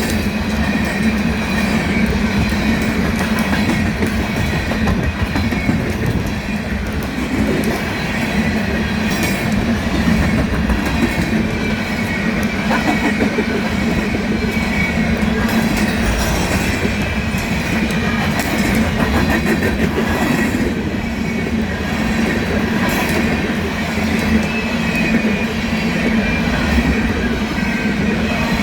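Loaded coal train rolling past, with steady wheel and rail noise and faint crackling and popping from the rails, which the uploader likens to something sticky, like an adhesive, on the rails.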